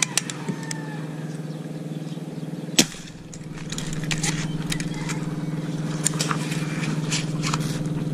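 An engine running steadily at an unchanging pitch, with scattered light clicks and one sharp knock a little under three seconds in.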